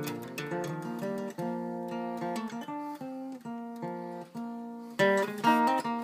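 Gibson Country Western acoustic guitar, capoed, played as a picked melody over ringing bass notes, with two louder strummed chords near the end.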